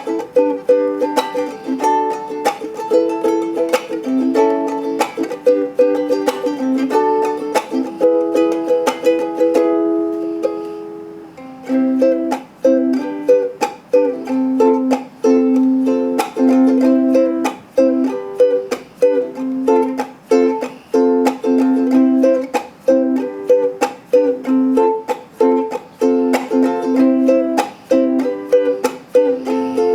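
Pili Koko ukulele played in a sound test: chords strummed in a steady rhythm. About ten seconds in, one chord is left to ring out and fade before the strumming starts again.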